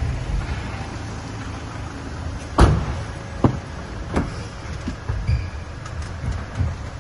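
Knocks and handling noise at a car's open rear door: one loud thump a little over two and a half seconds in, then two lighter knocks within the next two seconds, over a low rumble.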